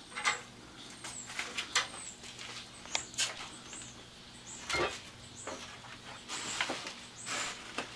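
Scattered short, high-pitched chirps or squeaks from small animals, among light clicks and rustling, over a faint steady hum.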